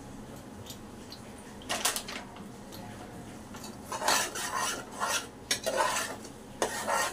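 A ladle clinking and scraping against the pressure cooker pot as a thick onion-tomato masala is stirred while it fries. There are a couple of brief clinks about two seconds in, then a run of quick scraping strokes from about four seconds on.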